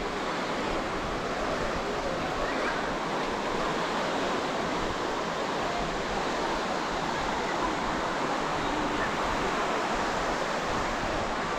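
Ocean surf washing steadily on a sandy beach, a constant rush of breaking waves, with faint distant voices now and then.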